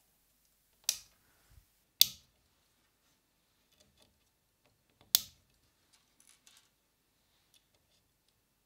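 Small 3D-printed plastic cable clips clicking as they are hooked onto the links of a printed camera arm: three sharp clicks a second or three apart, then a few faint ticks of handling.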